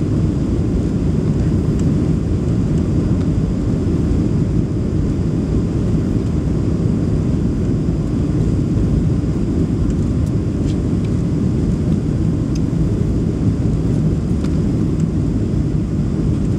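Boeing 737 Next Generation cabin noise on approach: a steady, deep rumble of the engines and airflow as heard inside the cabin.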